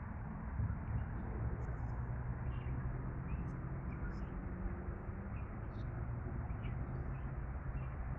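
Steady low rumble of city traffic with small birds chirping over it, in many short high calls scattered throughout.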